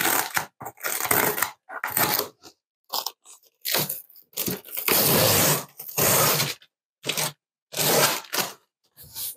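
A cardboard shipping box being handled and torn open: a string of irregular scraping, crunching and tearing noises, some short and some drawn out for about a second, with brief pauses between them.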